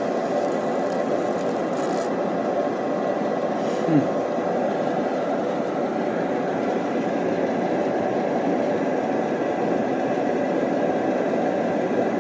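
Fume-extraction blower pulling air through a flexible foil duct: a steady rush of air with a faint whine. A brief falling squeak about four seconds in.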